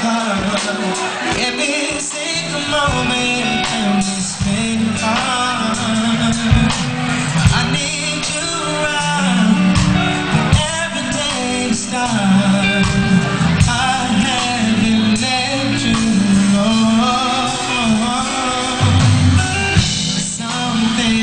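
A male R&B singer singing live with a band: a sung melody over sustained bass and chords with drum hits.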